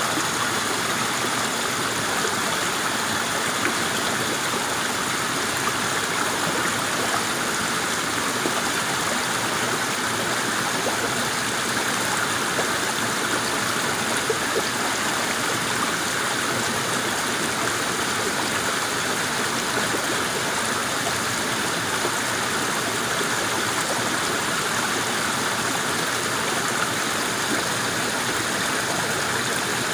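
Shallow river rushing steadily over rocks, an even, unbroken flowing-water sound.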